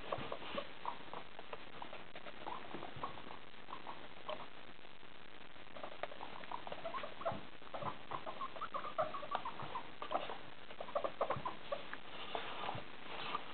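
Guinea pigs making many short, quick squeaks and chirps, which come thickest from about halfway through.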